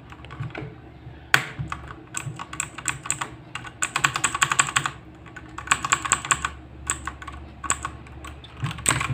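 Typing on a mechanical keyboard with clicky blue switches: irregular runs of fast key clicks, with the thickest flurries about four to six and a half seconds in.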